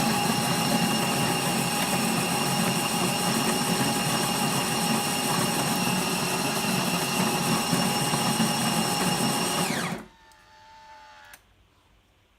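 Electric burr grinder built into a Smarter coffee machine grinding coffee beans: a loud, steady whining motor that winds down in pitch and stops about ten seconds in. A faint tone lingers for about a second more, then cuts off.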